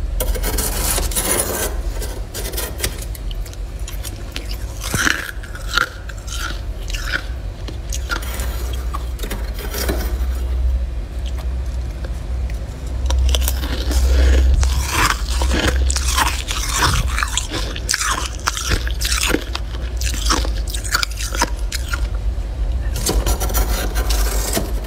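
Freezer frost being bitten and chewed: many irregular crunches over a steady low hum.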